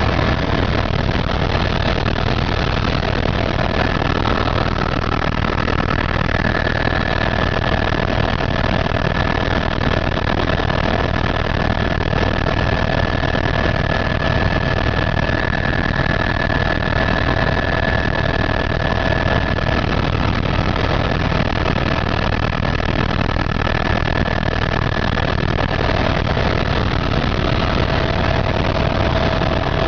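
Helicopter's turbine engine and rotor running steadily: a loud, even drone with a steady high whine over it.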